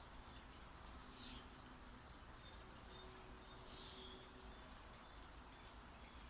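Faint garden ambience with birds: two short, downward-sliding chirps, one about a second in and one near the middle, over a low background rumble.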